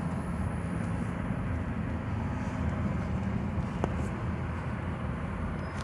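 Car driving at low speed: a steady engine and road rumble, with one faint click a little under four seconds in.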